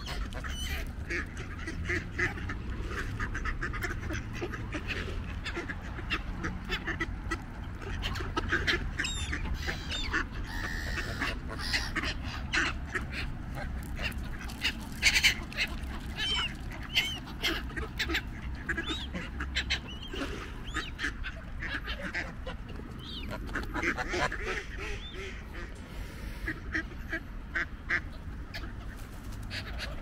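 Geese and ducks calling close by: frequent short honks and quacks overlapping one another, over a steady low rumble.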